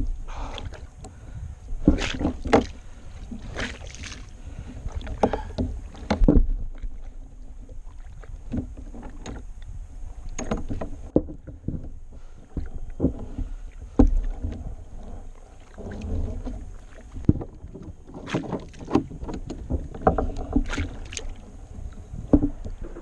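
Irregular knocks, clunks and rustles of handling on a kayak as a jig is worked out of a hooked stingray's mouth, with a low rumble underneath. Quieter for several seconds in the middle.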